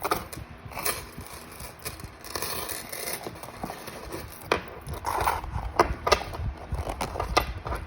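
Hands unpacking a parcel: plastic packaging crinkling and rustling, with scattered clicks and taps of items being handled.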